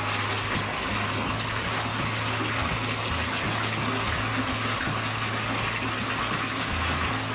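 Bathtub filling from the tap: a steady rush of running water pouring into the tub.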